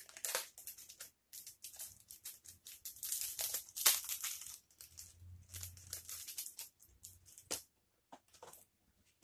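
Paper and plastic packaging rustling and crinkling in irregular bursts as items are handled in a subscription box, with a brief tearing sound.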